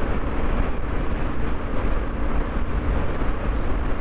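Yamaha Ténéré 700's parallel-twin engine running steadily while riding on loose dirt and sand, with heavy wind rumble on the microphone.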